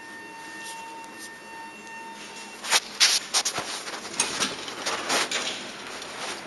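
A steady high electronic tone for about two and a half seconds, then a run of close footsteps, knocks and clothing rustle as a person walks into an elevator car.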